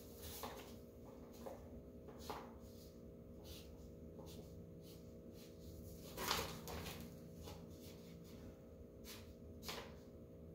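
Faint, scattered rustles and scratches of a sheet of paper being handled and drawn on with a pen, over a steady low electrical hum; one louder rustle about six seconds in.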